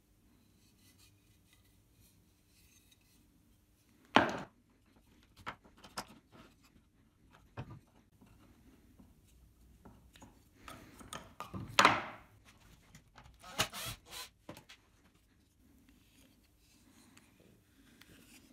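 Wooden parts of a hand-built model car's differential and brake calipers being taken off and handled: scattered knocks and clatters of wood on wood, with a sharp knock about four seconds in, the loudest clatter near the middle, and a quick run of taps soon after.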